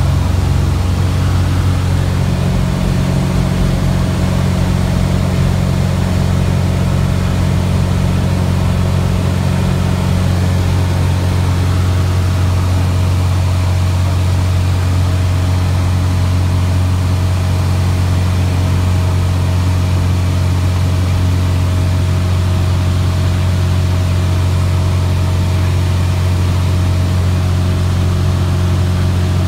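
Cessna O-2A's piston engine droning steadily, heard inside the cockpit in flight, with a slight shift in tone about ten seconds in.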